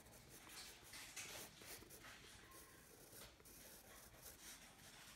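Faint scratching of a pencil drawing short, irregular strokes on sketchbook paper.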